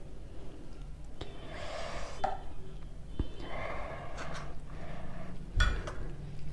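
Quiet serving sounds: a spoon scooping thick pea curry and laying it onto rice, with a few soft clicks of the spoon on the dishes and close, soft breathing. A sharper knock near the end, as the spoon goes back into the bowl.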